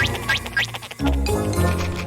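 Children's cartoon background music, with a new phrase and a strong bass note starting about a second in.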